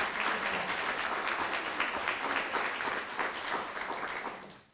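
Audience applauding: dense clapping from a room full of people, tapering in the last half-second before stopping abruptly.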